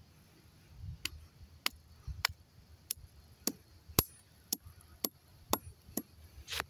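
A rusty hammer head pounding a small green fruit against a concrete slab, crushing it. About ten sharp knocks, roughly two a second, the loudest about four seconds in.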